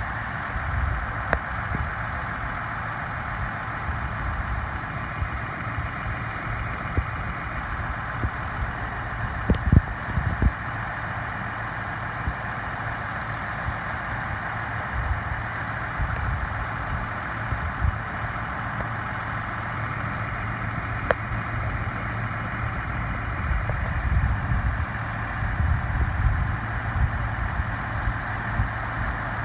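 Heavy farm machinery engine running steadily, with a constant low hum and a dense mechanical drone and a few brief knocks.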